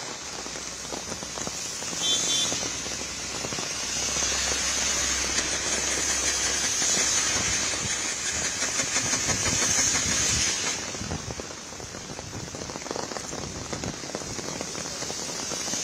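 Heavy rain pouring onto a paved road, a steady hiss that swells a couple of seconds in and eases about ten seconds in. Cars pass on the wet road, their tyres swishing through the water.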